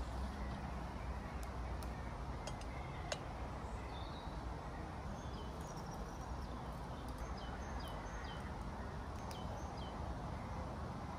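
Outdoor lakeside ambience: a steady low wind rumble, with small birds chirping repeatedly in the second half and a few light clicks in the first few seconds as fishing tackle is handled.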